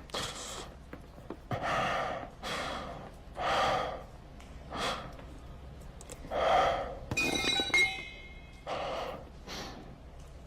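A man's heavy gasps and grunts, one about every second, from someone being beaten. A short metallic ring comes about seven seconds in.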